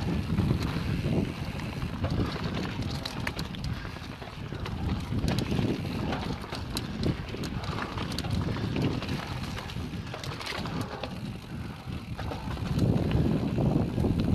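Mountain bike ridden fast down a rocky dirt singletrack: tyres rolling and crunching over dirt and stones, with scattered clicks and rattles from the bike over bumps, and wind rumbling on the microphone. It grows louder near the end.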